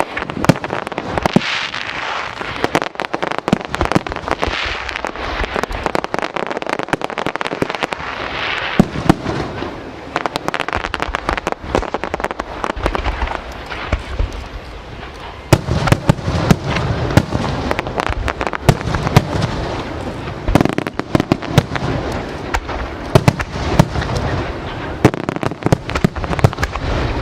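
Aerial fireworks display: shells bursting and crackling in a dense, continuous barrage, with deeper booms coming thicker about halfway through.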